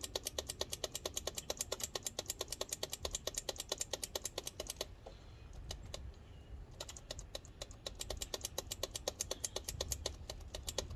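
Yamaha V-twin motorcycle's starter solenoid chattering with rapid clicks, about ten a second, in two runs of several seconds with a short pause between, while the starter does not turn the engine over. The rider takes it for the solenoid clicking, on a bike said to need a new starter.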